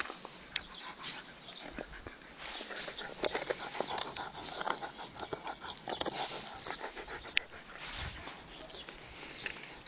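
A dog panting, with many short sharp clicks and rustles throughout, busiest in the middle.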